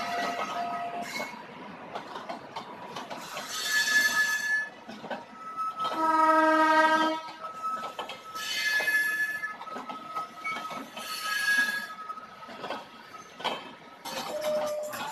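Indian Railways LHB passenger coaches rolling past, wheels clattering and clicking over the rails, with high-pitched wheel squeals several times. About six seconds in, a train horn sounds once for about a second, the loudest sound. Music comes in near the end.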